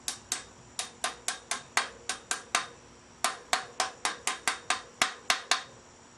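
Steel crank bearing races being tapped into a bicycle's bottom bracket shell with a hammer: about twenty light, sharp metallic taps at roughly four a second, pausing briefly near the middle.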